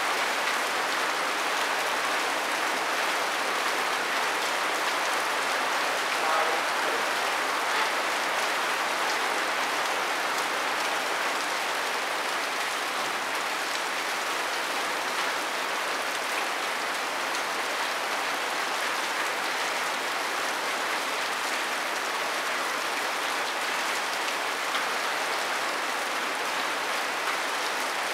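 Steady rain falling on a sago-palm thatch roof: an even, unbroken hiss of drops.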